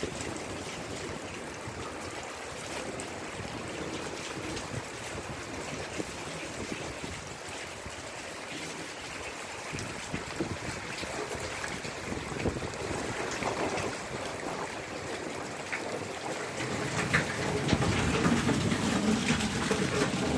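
Steady heavy rain falling on the yard, trees and porch during a summer storm, with wind in the trees. Near the end louder rumbling and bumps from the phone being handled and moved.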